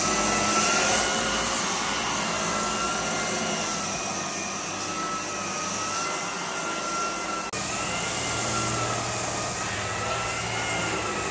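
Lagler Flip edge sander running steadily as its disc sands plywood subfloor along the wall: a high, slightly wavering motor whine over the hiss of the sanding disc. The sound drops out for an instant about seven and a half seconds in, then carries on.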